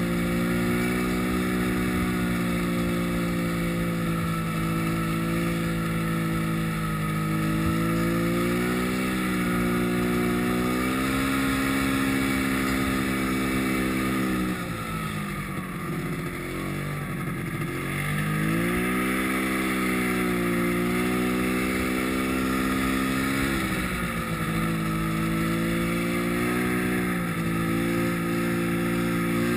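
Yamaha snowmobile engine running under throttle, its pitch rising and falling as the rider works the throttle. About fifteen seconds in the engine drops off sharply, then climbs back up a few seconds later.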